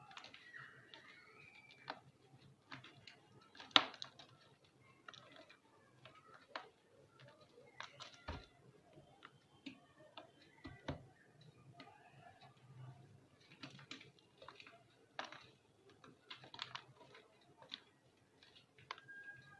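Reformed gym chalk crunching and crumbling as it is crushed, in scattered crisp crackles with one louder snap about four seconds in.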